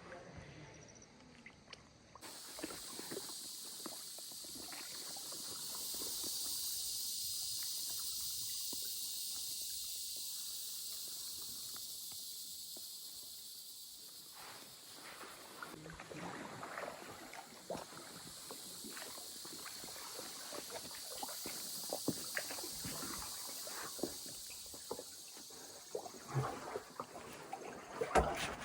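A steady, high-pitched insect chorus that starts abruptly about two seconds in and swells and fades, over the light splashes and drips of canoe paddles in the water, which grow more frequent near the end.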